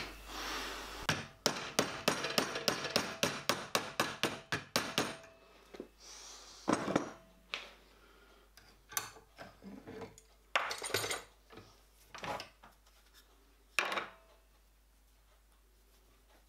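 Rapid hammer blows on a copper firebox tube plate being flanged over a wooden former in a bench vice, about five blows a second for some four seconds. Then scattered single knocks and clanks as the G-clamp and vice are handled.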